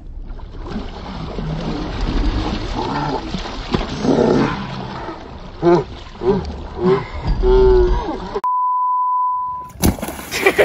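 Girls yelling and shrieking in short, rising-and-falling cries over a rushing noise of water and wind. Near the end the sound cuts out and a steady one-pitch censor bleep sounds for about a second and a half. A sharp knock follows.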